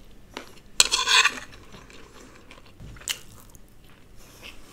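Close-miked eating with a metal spoon: a few sharp clicks of the spoon, and a short loud crackly burst about a second in as a mouthful of poha is bitten and chewed.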